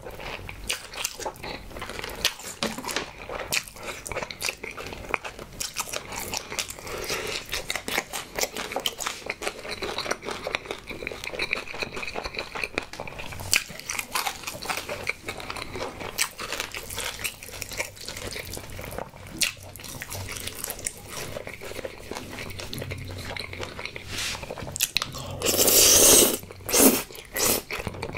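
Close-miked eating of crispy fried honey-glazed chicken drumsticks: dense, irregular crunching, biting and chewing, with a couple of louder rushing noises near the end.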